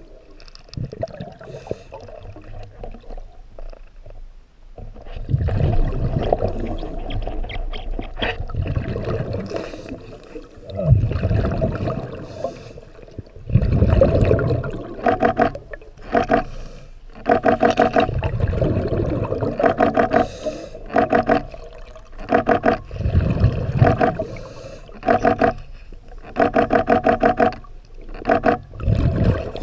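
Scuba diver breathing through a regulator underwater: exhaled bubbles rumble out every few seconds. In the second half, many short buzzy bursts come in quick runs.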